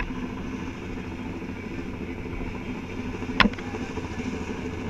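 A helicopter's engine and rotor droning steadily, with a single sharp click about three and a half seconds in.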